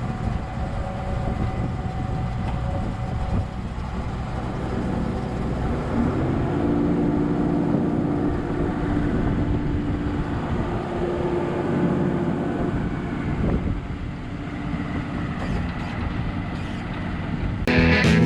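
John Deere 955 combine harvester's diesel engine running steadily. A steady pitched whine joins in for several seconds partway through. Music starts right at the end.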